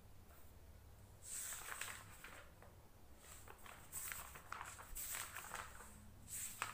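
Paper pages of a book rustling as they are turned by hand, in several short bursts starting about a second in.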